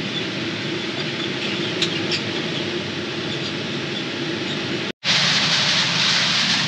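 Steady drone of a dump truck driving at highway speed, heard from inside the cab. About five seconds in the sound drops out for an instant and comes back as a louder, steady hiss of heavy rain and wind beating on the truck.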